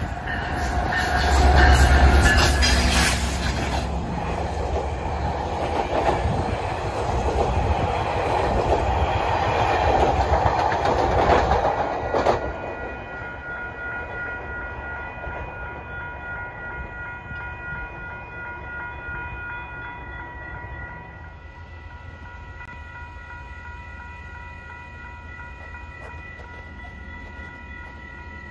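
A train passing close by at speed: loud rushing and wheel clatter on the rails, loudest about two seconds in, cutting off sharply about twelve seconds in as the end of the train goes by. Fainter steady high tones linger afterwards.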